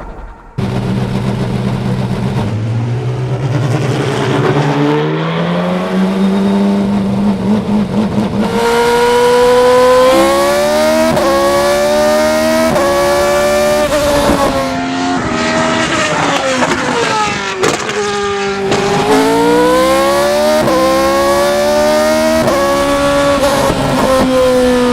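Williams FW29 Formula One car's 2.4-litre Toyota V8 moving off at low revs with a slowly rising note. It then accelerates hard through quick upshifts, each a rising whine cut by a short dip in pitch. About two-thirds of the way through, it slows with a falling pitch through downshifts, then accelerates through the gears again.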